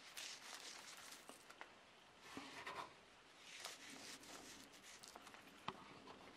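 Faint rustling and pattering of coarse salt and spices being sprinkled and pressed onto slabs of salted pork fat in a wooden tub, with a light tap near the end.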